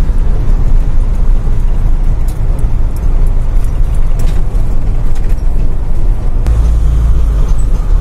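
Motorhome driving along a road, heard from inside the cab: a steady low rumble of engine and road noise with a few faint clicks. The rumble gets deeper and stronger near the end.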